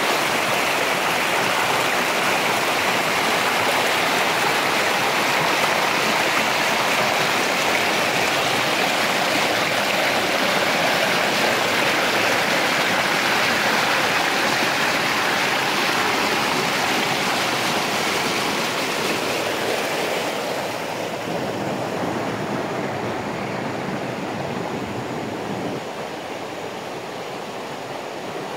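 River water rushing and splashing over rocks in shallow rapids, a steady loud rush. About two-thirds of the way through it turns quieter and duller as calmer water takes over.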